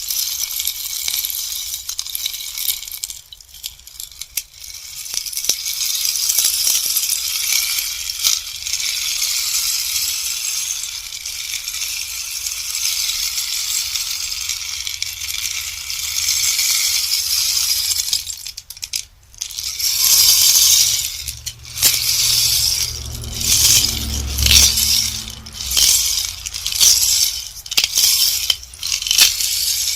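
Bamboo rainstick being turned: pebbles trickle through the tube in a long, even, rain-like patter for the first two-thirds, then in a string of short pours, about one a second, near the end.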